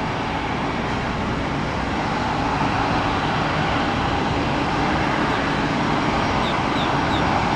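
Embraer regional jet taxiing, its turbofan engines running steadily at taxi power: a continuous rushing roar with a hum near 1 kHz, growing a little louder after a couple of seconds.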